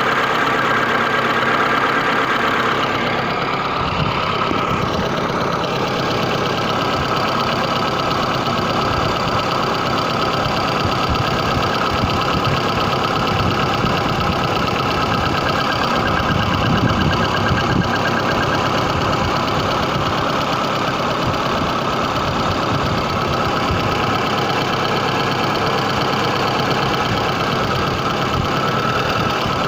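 VAZ-21099 inline-four engine running steadily with an irregular knock that comes and goes, clearest about eighteen seconds in. It is an unexplained knock that the owner has not diagnosed.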